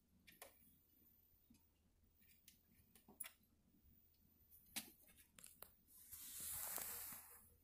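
Near silence: room tone with a few faint ticks, then, about six seconds in, a soft rustle lasting a second or so as the phone filming is picked up and moved.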